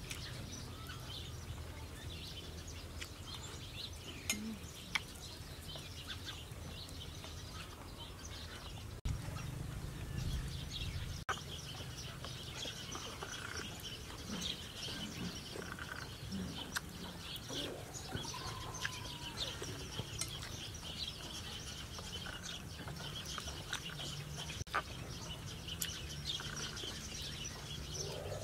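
Small birds chirping steadily and busily, with a few sharp clinks of a metal spoon against a plate as a person eats. About eighteen seconds in, a longer call rises and falls once, and a low rumble swells for a couple of seconds around the ten-second mark.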